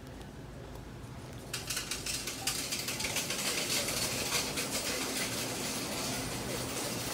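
Supermarket background noise: a low steady hum, joined about a second and a half in by a denser clatter of small clicks and knocks.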